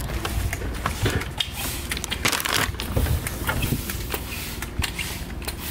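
Paper take-out bag crinkling and rustling in a hand while walking: irregular crackles over a low rumble.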